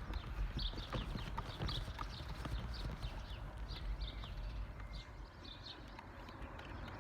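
A small bird chirping repeatedly, short falling notes about twice a second, over a low rumble of wind on the microphone that eases after about five seconds.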